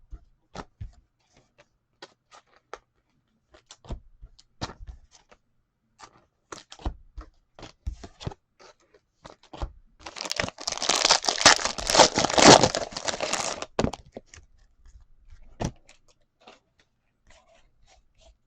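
A sports card pack's wrapper being torn open and crinkled, one dense crackling stretch of about four seconds beginning about ten seconds in. Scattered light clicks and taps of cards being handled come before and after.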